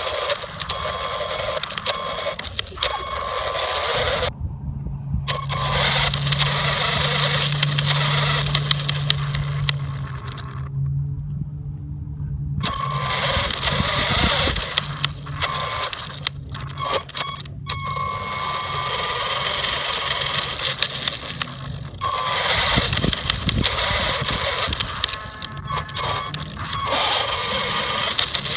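GPToys S911 RC truck's electric motor and gears whining, the pitch rising and falling as the throttle is worked on and off, with tyres crunching over dirt, heard from the phone mounted on the truck. The drive sound cuts out briefly twice, about four seconds in and again around eleven seconds.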